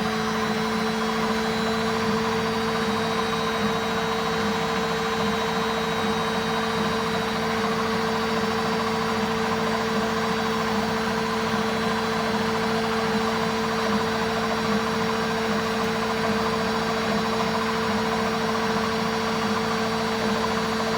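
Washing machine on its spin cycle: the motor and drum spin at a steady high speed, giving an even hum with a constant whine over the rush of air and water.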